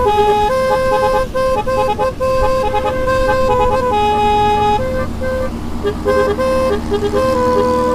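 Basuri telolet horn with snail-shaped (keong) trumpets playing a tune: a quick run of short and held notes stepping between several pitches, over a steady low rumble.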